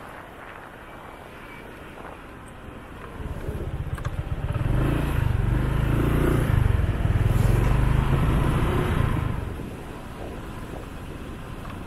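Motorcycle engine running while riding in slow traffic, heard from on the bike. A low engine rumble swells from about three seconds in, holds loud for several seconds with steps in pitch, then drops back near the end.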